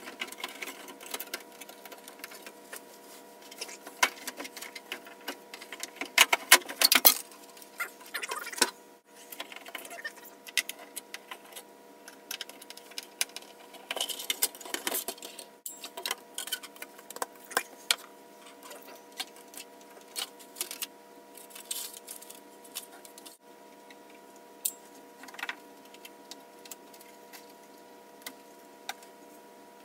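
Hand-disassembly noises from a rear-projection TV cabinet: irregular clicks, knocks and rattles of plastic trim panels and a speaker being worked loose, loudest in a cluster about six to seven seconds in. A faint steady whine at several pitches runs underneath.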